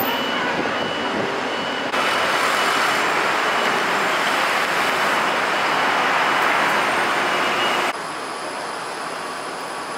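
Steady city road traffic heard from above: cars, buses and scooters running along a busy street, with a thin high tone over it. The noise jumps louder about two seconds in and drops back abruptly near eight seconds.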